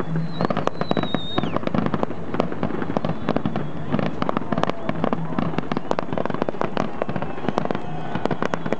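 Fireworks display: aerial shells bursting with rapid, continuous popping and crackling. A high whistle lasts about a second near the start.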